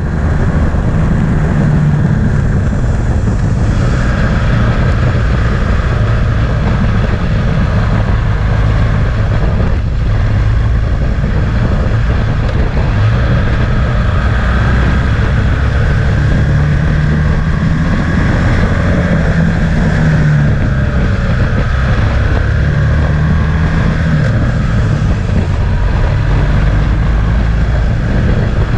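Motorcycle engine running at speed, its note rising and falling with the throttle, heard from a bike-mounted camera with steady wind noise on the microphone.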